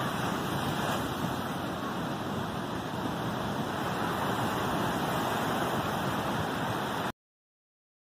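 Ocean surf breaking on a sandy beach: a steady wash of waves that cuts off suddenly about seven seconds in.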